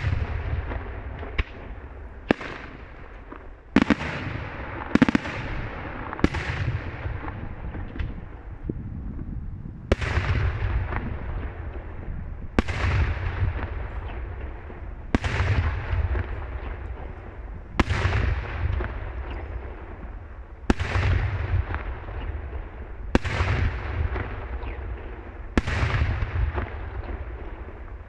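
Daytime aerial fireworks shells bursting overhead. A few quick, sharp bangs come in the first seconds, then a steady series of heavy booms about every two and a half seconds, each trailing off in a long echoing rumble.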